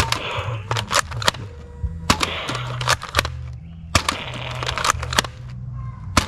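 Nerf foam-dart blaster firing repeatedly: sharp clicks and short air puffs of the shots and of darts striking plastic targets, about two or three a second, over background music with a steady bass.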